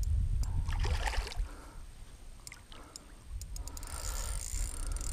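Water splashing and sloshing at a boat's side as a hooked pike is played on a spinning rod, with a few light clicks and a steady low rumble underneath; the splashing grows brighter and busier near the end.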